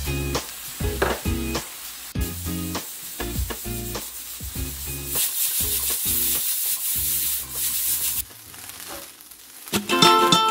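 Rice frying in a hot pan, with a loud sizzling hiss for about three seconds around the middle as liquid seasoning is poured onto it, stopping abruptly. Background music plays faintly in the first half and returns loud, with plucked strings, near the end.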